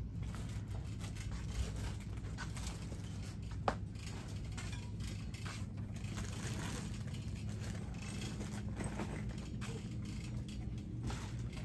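Steady low hum of a shop's background with faint scraping and rustling of items being handled, and one sharper click about three and a half seconds in.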